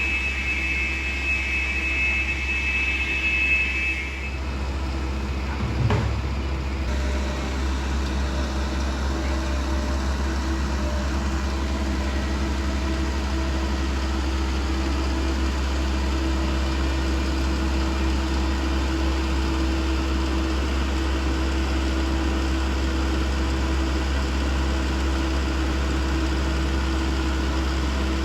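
Tree-trimming skidder running steadily at a distance, a constant engine drone with a steady hum. A high steady whine sounds for the first four seconds, and a single thump comes about six seconds in.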